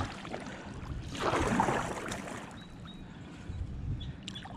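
Kayak paddle strokes through calm, shallow river water: the blade swishes and splashes, loudest about a second in, with quieter water sounds between strokes.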